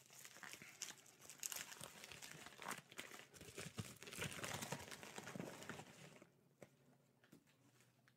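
Packaging being opened by hand: faint crinkling and tearing with scattered small clicks, dying down about six seconds in.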